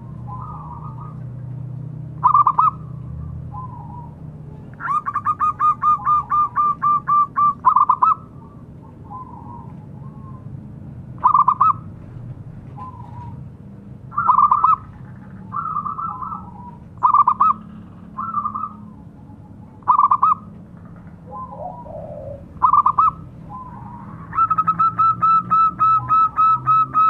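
Zebra dove (perkutut) cooing. Short loud notes recur every three seconds or so, with fainter notes between them. Two long runs of rapid staccato cooing notes come about five seconds in and again near the end, over a low steady background hum.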